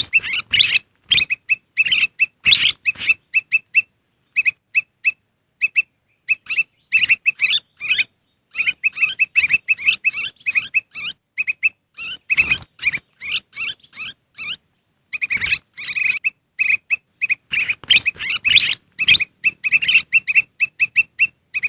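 Kutilang emas bulbul calls played as a lure recording: busy runs of short, clear chirping notes in quick succession, repeated with brief pauses throughout.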